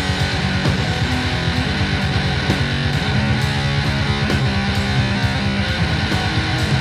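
Loud heavy doom-punk rock band jamming: distorted electric guitar and bass guitar playing without a break, with a regular run of sharp hits in the highs.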